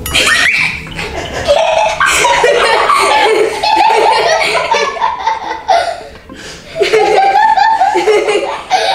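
A girl laughing hard, in long bouts of giggling laughter, easing off briefly about six seconds in before starting again.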